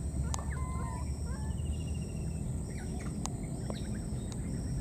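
Outdoor ambience: a steady low rumble under a steady high-pitched whine, with a few short, faint chirping calls.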